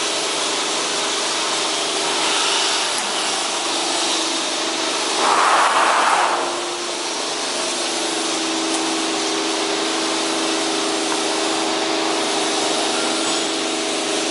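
CNC plate shearing machine running with a steady hum while its front feeder pushes a rusty steel plate toward the blade. About five seconds in, a louder rushing noise lasts about a second.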